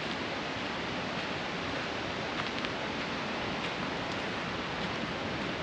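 Rushing river water: a steady, even rush with no change in level.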